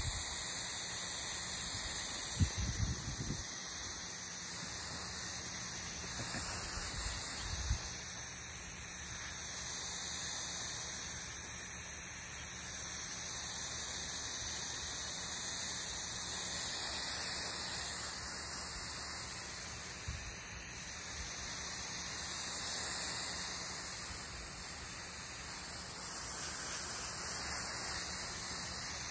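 Garden hose spraying water in a steady hiss onto a lawn. A few short low thumps come in the first eight seconds.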